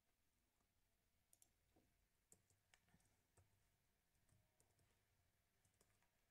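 Near silence with faint, irregular clicks of a computer keyboard being typed on.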